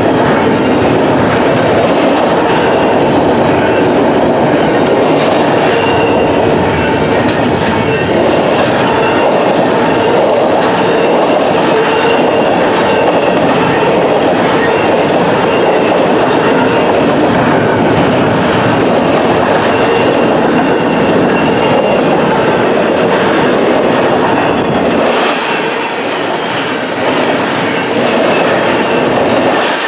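Double-stack intermodal freight train passing at speed: a steady rumble and clatter of steel wheels over the rails as the container cars roll by, easing slightly near the end.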